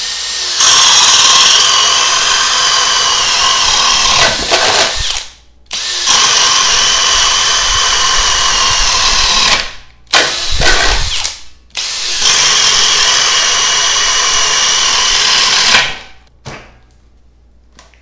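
Makita XPH14 18V LXT hammer drill in plain drill mode at speed 2, boring holes through a wooden beam with a 1¼-inch spade bit. There are three steady runs of about four seconds each, with a short extra burst between the second and third.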